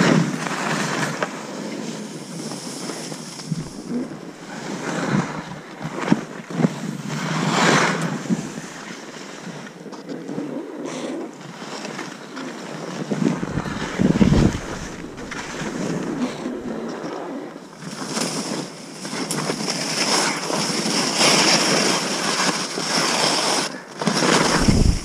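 Skis hissing and scraping through soft snow in a run of turns, the rush swelling and fading with each turn, with wind buffeting the microphone. A low thump comes about fourteen seconds in and again near the end.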